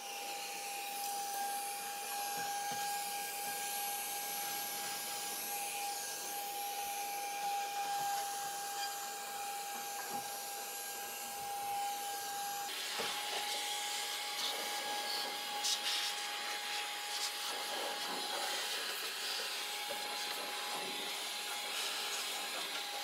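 Handheld electric air blower (air duster) running steadily, blowing dust out of a 3D printer's enclosure: a rush of air over a thin motor whine. About halfway through, the air noise turns hissier.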